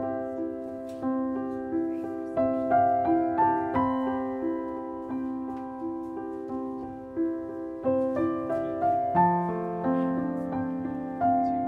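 Background piano music: a slow melody of struck notes, each ringing and fading, with deeper notes coming in near the end.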